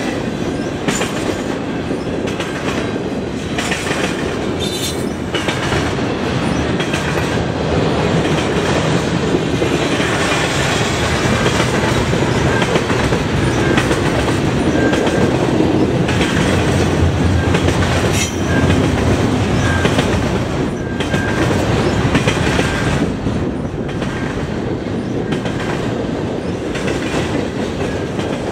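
Double-stack container well cars of a freight train rolling past at speed: a steady rumble of wheels on rail, with scattered sharp clacks as the wheels cross rail joints.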